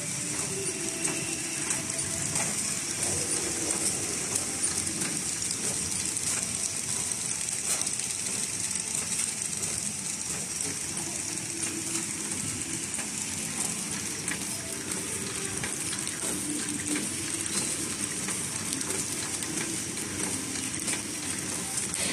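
NH-S500 horizontal flow wrapper running steadily while wrapping snack cakes: a continuous mechanical clatter of fine ticks over a steady high hiss.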